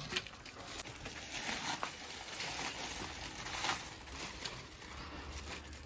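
Aluminium foil wrapping being torn and peeled open by hand, crinkling and crackling irregularly.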